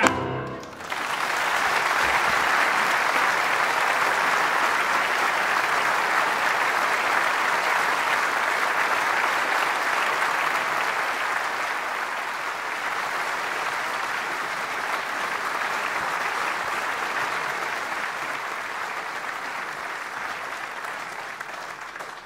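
Live audience applauding as a song ends: one long, steady round of clapping that slowly dies away near the end.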